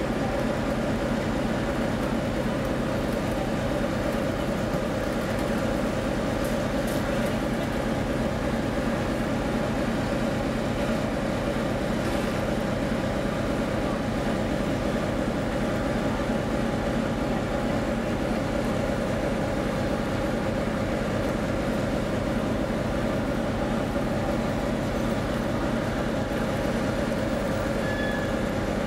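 Steady drone of a TEP70 diesel locomotive's engine idling, an even, unchanging hum with several steady tones.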